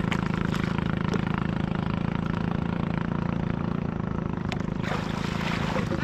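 A small boat engine idling with a steady hum, with water splashing and sloshing as a pipe fish trap is worked up out of the shallows.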